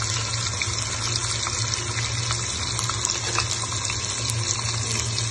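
Marinated chicken pieces sizzling in hot oil in a nonstick pan: a steady hiss with scattered small crackles.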